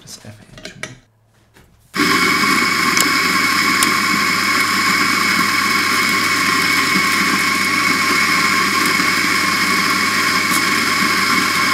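Eureka Mignon Libra espresso grinder grinding coffee beans into the portafilter: a steady motor hum with a high whine that starts about two seconds in, after a few faint clicks of the portafilter being seated. It cuts off abruptly at the end, when the grinder stops itself at the 16-gram dose set on its built-in scale.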